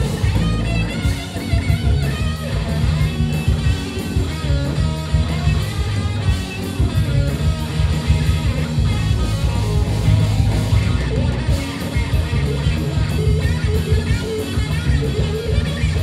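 Live rock band playing loud: electric guitars over bass guitar and a drum kit.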